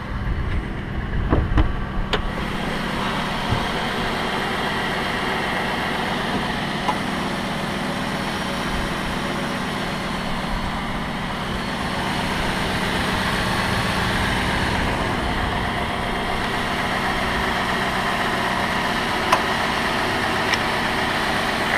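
2004 Cadillac DeVille's 4.6-litre Northstar V8 idling steadily, heard from over the open engine bay, with a few knocks in the first two seconds.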